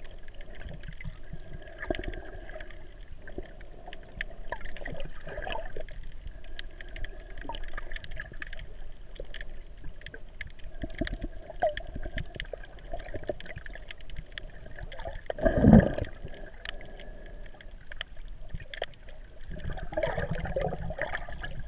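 Underwater sound heard through a GoPro Hero 3's waterproof housing while snorkeling: muffled water moving around the camera with scattered faint clicks. A louder rushing surge comes about two-thirds of the way through, and the water noise builds again near the end.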